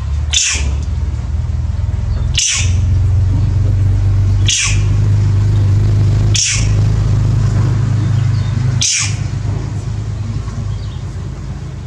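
Aerosol wound spray hissing in five short bursts, about two seconds apart, over a steady low hum.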